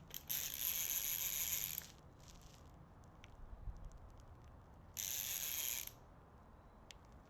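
Fishing reel clicking in two bursts, the first about a second and a half long and the second about a second, while a bass is on the line.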